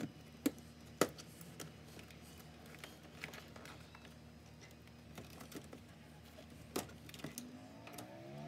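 Scattered clicks, taps and knocks of hand tools on the plastic shifter trim of a car's centre console as it is pried and worked loose, the sharpest knocks about half a second and one second in. Guitar music begins to come in near the end.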